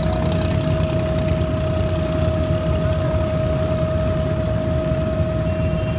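Diesel engine of an abra water taxi running steadily under way, a deep rumble with a steady whine held on top.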